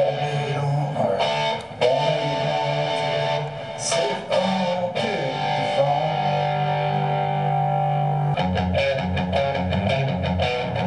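Electric guitar strumming chords that are held and left to ring, turning to quicker, choppier strumming about eight seconds in.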